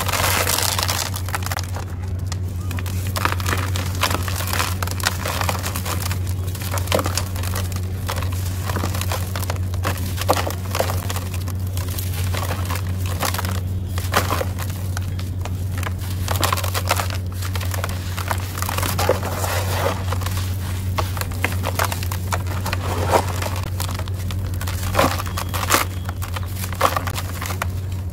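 Dry, dusty, gritty chunks crushed and crumbled by hand, with irregular crunching and crackling and loose grit pouring into a plastic tub.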